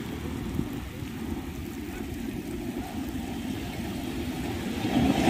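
Ocean surf breaking and washing up a sandy beach, heard as a steady low rumble.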